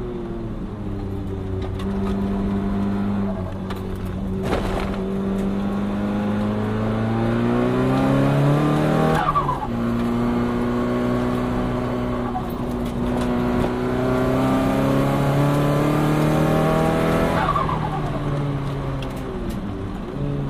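Turbocharged Nissan Silvia S15 four-cylinder engine pulling steadily up through the revs. About nine seconds in the revs drop sharply with a short falling chirp, then the engine climbs again, and it eases off with another falling chirp near the end.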